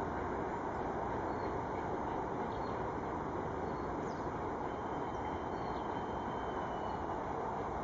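Steam train of two class L locomotives approaching in the distance: a steady, even rumble, with a few faint bird chirps about halfway through.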